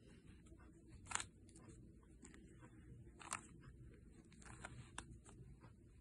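Faint, scattered clicks of a plastic 3x3 Rubik's Cube's layers being turned by hand. The clearest come about a second in and about three seconds in.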